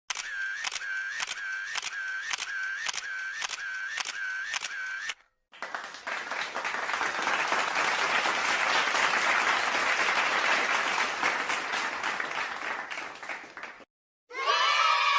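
A sound-effect sequence. First come about a dozen evenly spaced clicks, roughly two a second, each with a short tone. Then, after a brief gap, several seconds of steady applause-like noise that fades out.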